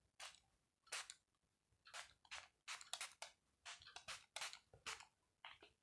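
Small pump spray bottle misting toner onto a face: a run of about a dozen short, faint hissing spurts at an uneven pace.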